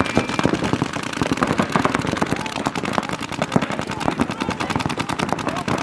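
Paintball markers firing rapid, continuous volleys, many shots a second, as several guns shoot at once.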